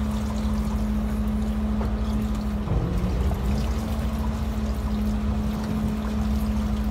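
Fishing boat's engine running with a steady hum and a low throb, under the wash of sea water against the hull. The hum wavers briefly about three seconds in.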